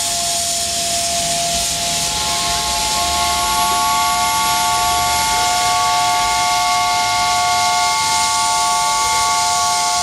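Double-headed steam locomotives' whistles sounding together in one long held chord of several steady tones over hissing steam; one tone drops out near the end.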